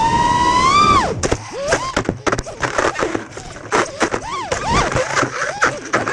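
FPV racing quadcopter's brushless motors (Emax RS2205 2600kv on 5-inch DAL props) whining, the pitch climbing and then dropping about a second in. The quad then crashes through tree branches: a rapid run of clicks and cracks from the props striking twigs and leaves, while the motor whine rises and falls in short surges as the pilot keeps throttling.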